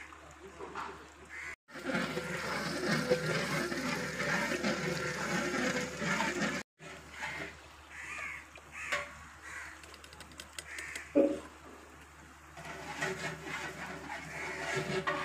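Masala simmering and bubbling in a large aluminium cooking pot while it is stirred with a long metal ladle, with crows cawing a few times.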